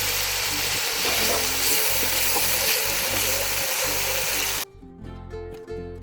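Chopped tomato sizzling as it fries in hot oil with onion-garlic masala, over background music. The sizzling cuts off abruptly about four and a half seconds in, leaving only the music.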